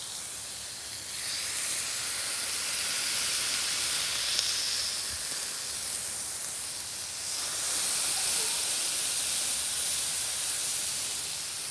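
Smashed beef patties sizzling on a hot flat-top griddle as they are pressed down onto sliced onions with a stainless steel spatula. The sizzle grows louder about a second in, dips briefly past the middle, then swells again as more patties are smashed.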